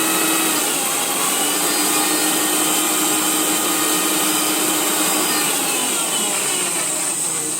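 Electric mixer grinder (mixie) running steadily at speed, blending banana into orange Tang drink for a shake: a loud, even motor whine.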